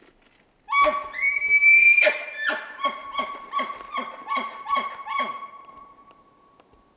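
Bull elk bugling: a high whistle held steady, then a lower steady tone under a run of grunting chuckles about three a second, fading out near the end.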